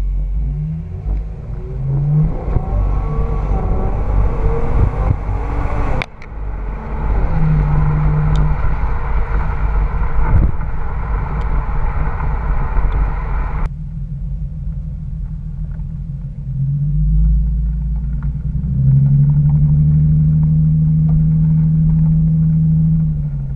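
Infiniti G37x's 3.7-litre V6 exhaust heard from outside the car while driving, the note rising and falling as the car accelerates and lifts off, with road noise. About fourteen seconds in the sound changes abruptly to a deeper, steadier drone from the Ark cat-back exhaust, which swells a few seconds later and holds.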